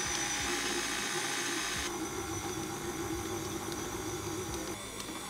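Electric stand mixer's motor running steadily at low speed, its beater turning mashed potato, flour and egg into a stiff gnocchi dough. Its tone shifts slightly about two seconds in and again near the end.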